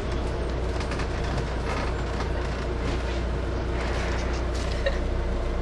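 Steady low rumble and running noise inside a train carriage.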